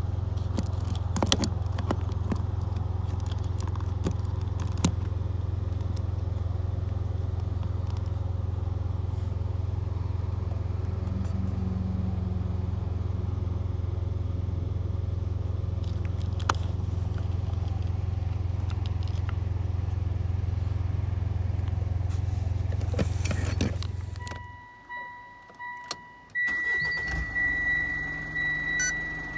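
A steady low hum inside a Mitsubishi Delica D5, with a few sharp clicks and knocks of handling. About 24 s in the hum stops, and near the end a car's electronic chime beeps over and over.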